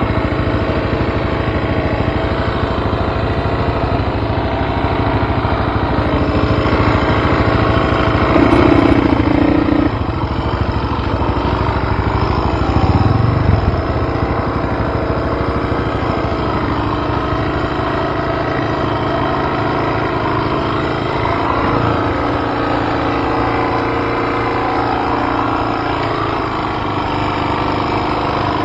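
Dirt bike engine running close by under load on a rocky trail, with the throttle opened harder twice, about nine and thirteen seconds in.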